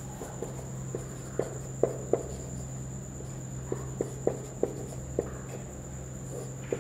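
Whiteboard marker writing on a whiteboard: about eight short, irregular taps and strokes of the tip on the board. Under it a steady high-pitched whine and a low hum.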